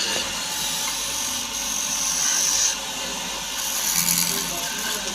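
A power tool working wood, a steady hissing noise that drops in level a little under three seconds in.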